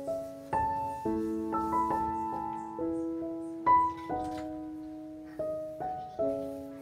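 Background piano music: gentle notes and chords, each struck and then fading.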